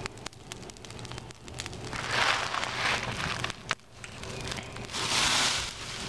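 Fire crackling and popping as it burns plastic model toy cars, with two bursts of hissing noise about two and five seconds in.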